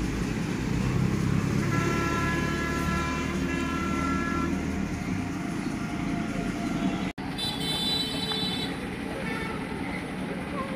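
Steady low rumble of traffic with a long, steady vehicle horn blast lasting about three seconds. After a momentary dropout, a second, higher-pitched horn toots for about a second.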